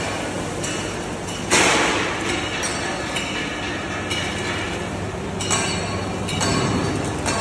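Wheat thresher running with a steady mechanical drone and rattle, with metallic clinks and knocks. A short, loud burst of noise comes about a second and a half in.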